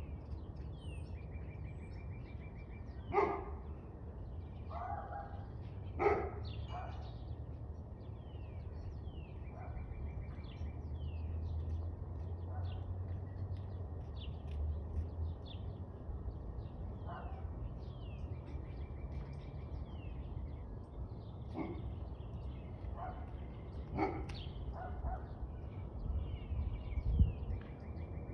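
Several wild birds chirping and singing, with a short rapid trill repeating about every nine seconds. A dog barks a few times, loudest about three and six seconds in and again near the end, over a steady low rumble.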